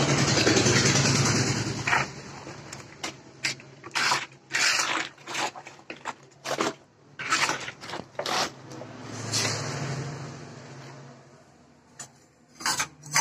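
A cooking spatula scraping and knocking against a large metal pan as syrup-coated fried lotika pastries are stirred, in irregular scrapes and clatters. A low steady hum sounds underneath for the first two seconds and again about two-thirds through.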